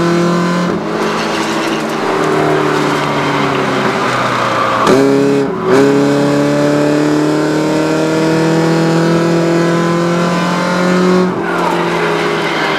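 Small stock race car's engine under load, heard from inside the cabin: its note climbs steadily, dips sharply about five seconds in and again near the end as the throttle comes off, then climbs again.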